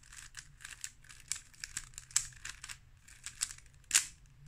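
A 3x3 Rubik's cube being turned quickly by hand: a rapid, irregular run of light plastic clicks and clacks as the layers snap round, one louder clack near the end.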